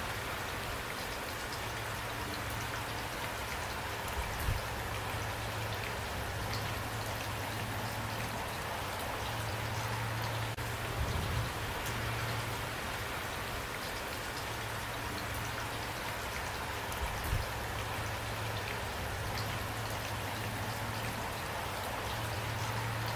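Steady rain falling, with drops pattering on a surface. A low rumble comes and goes underneath, and two brief louder drop hits stand out, about four seconds in and again after about seventeen seconds.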